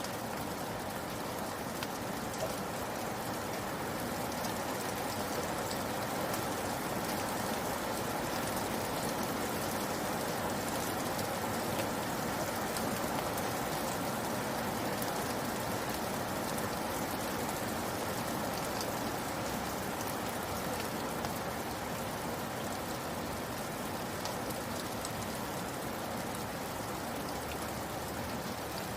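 Steady rain falling, a continuous even hiss with scattered individual drops ticking on a surface.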